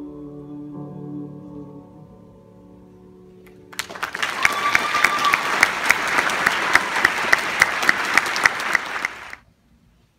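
A male solo singer and piano hold a final note for a few seconds. It gives way at about four seconds in to audience applause, with one nearby clapper striking about three times a second. The applause stops suddenly about a second before the end.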